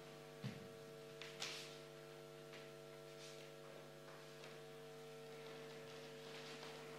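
Steady electrical hum, with two faint knocks about half a second and a second and a half in.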